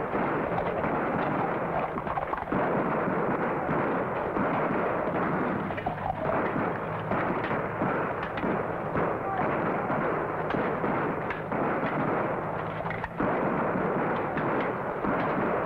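Battle sound effects: a dense, continuous din of musket and cannon fire, many sharp shots overlapping without a break.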